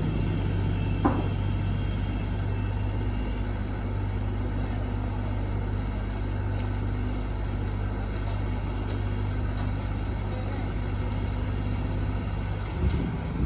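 Kubota combine harvester's diesel engine running steadily with an even low hum, with a short sharp click about a second in. Near the end the steady drone turns into a rougher, uneven rumbling.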